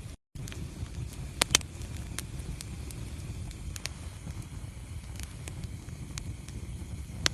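Wood fire burning in a fireplace: a steady low rumble of the flames with scattered crackles and two sharp pops about a second and a half in. The sound cuts out for a moment just after the start.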